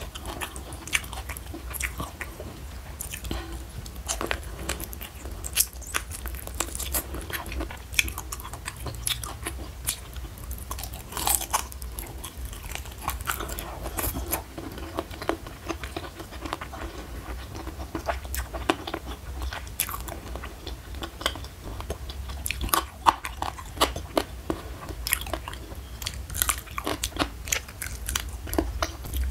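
Close-miked eating: biting and chewing chicken feet, with many irregular crunchy, wet clicks.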